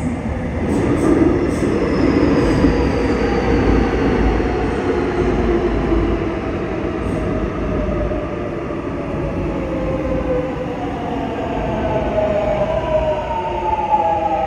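Seoul Subway Line 7 electric train pulling into the station and braking: steady rumbling running noise with whining tones that fall in pitch as it slows, strongest near the end.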